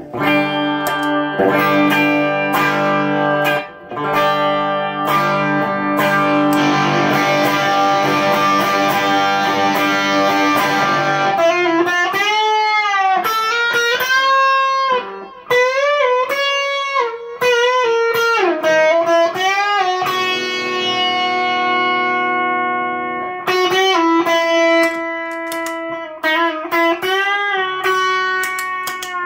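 Electric guitar, a single-coil Stratocaster played through a Fender Twin Reverb amp with overdrive, ringing out sustained chords for about the first ten seconds. It then moves to single-note lead lines full of string bends, with one long held note partway through.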